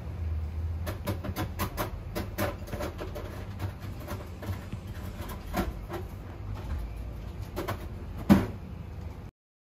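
Irregular sharp clicks and taps over a low steady rumble, thickest about a second in and thinning out, with one louder knock near the end; the sound cuts off abruptly just before the end.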